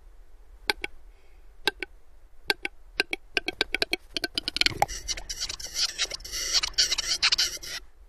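Male western capercaillie's courtship song: single dry clicks that come faster and faster into a rapid roll, a louder pop about five seconds in, then about three seconds of scraping, hissing whetting.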